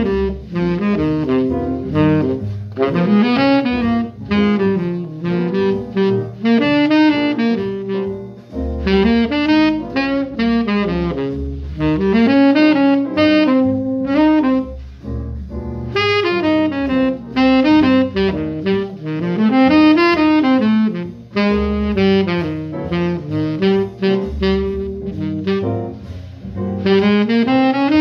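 Tenor saxophone playing a jazz melody in long flowing phrases, with short breaks for breath between them.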